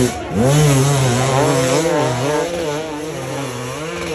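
Off-road enduro motorcycle engine revving hard under load as the bike claws up a steep dirt hillside. The revs drop sharply just after the start, climb back, then keep rising and falling with the throttle.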